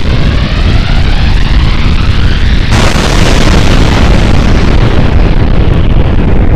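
Loud explosion sound effect laid over a nuclear mushroom-cloud shot: a deep continuous rumble with a rising whoosh, then a sudden blast about three seconds in that rumbles on.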